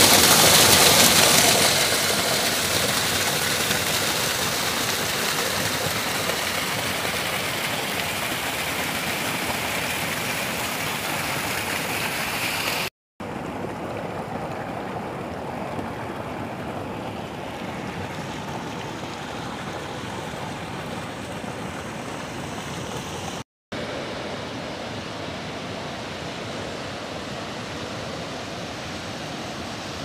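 Rushing mountain water: a small waterfall pouring over rocks up close, then a stream tumbling over boulders, a steady rushing hiss. It is loudest and brightest in the first two seconds, then settles lower, and it drops out briefly twice.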